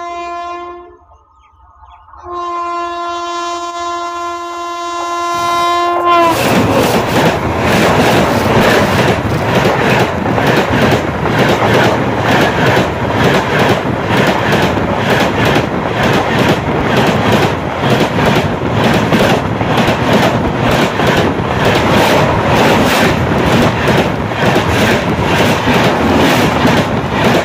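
Train horn sounding two long blasts, the first ending about a second in and the second cutting off about six seconds in. The train then passes right over the microphone: a loud rush of wheels on rail with a steady, regular clickety-clack of wheels over rail joints for the rest.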